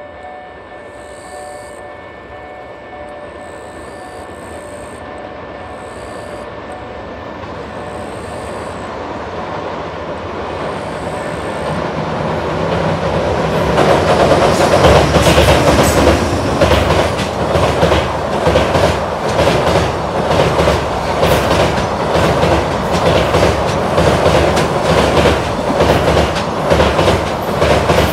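EH500 electric locomotive hauling a long container freight train over a steel railway bridge: a distant rumble grows steadily louder through the first half, then, from about halfway in, a loud rhythmic clickety-clack of the wheels passing over the rail joints as the locomotive and container wagons go by.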